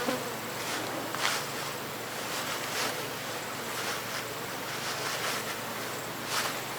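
Steady outdoor wind-like background noise, with a few faint short sounds scattered through it.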